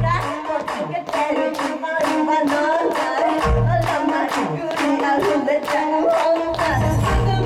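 A female solo vocalist singing into a handheld microphone over a pop backing track with a steady, fast beat.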